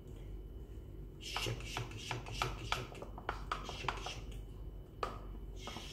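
Thin wooden stick stirring a protein shake in a clear plastic cup, clicking and knocking against the cup's sides in quick, irregular taps from about a second and a half in until about five seconds in. A low steady hum runs underneath.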